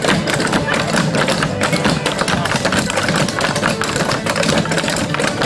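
Clogging taps from several dancers clattering on a wooden deck in a rapid, steady rhythm, over live acoustic guitar music.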